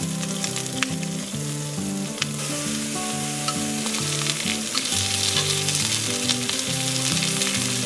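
Beef, sausages and king oyster mushrooms sizzling on a thick 4 mm steel griddle plate, a steady frying hiss.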